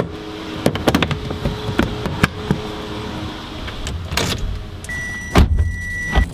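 Handling noises of a small electric car (Fiat 500e) being unplugged from its charger and got into: clicks and knocks, the loudest thud a little past five seconds in. A steady high beep from the car sounds over about the last second and a half.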